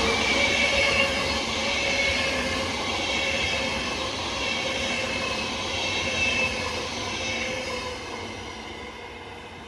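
A VR electric locomotive and its double-deck passenger coaches passing at speed: continuous wheel-on-rail rumble with a high steady ringing tone. The sound fades steadily over the last few seconds as the train draws away.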